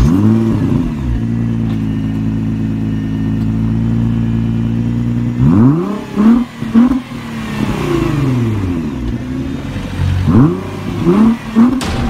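Car engine starting with a quick rev and settling to a steady idle, then a series of sharp throttle blips about halfway through, a long rev falling away, and another burst of quick blips near the end.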